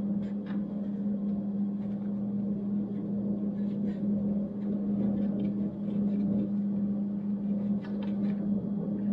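Scattered faint clicks and taps of metal parts being handled and fitted while bolt holes on a table saw are lined up. Beneath them is a steady low background hum.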